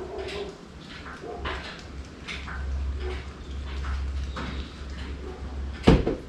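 Scattered light knocks and scrapes as a V8 engine hanging from a hydraulic engine crane is worked by hand, with one loud thump near the end.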